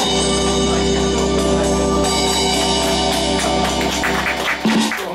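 Technitone SX-GN9K electronic organ holding a final sustained chord, with quick strokes from electronic drums and cymbals over it, closing a jazz tune. The chord cuts off about four and a half seconds in.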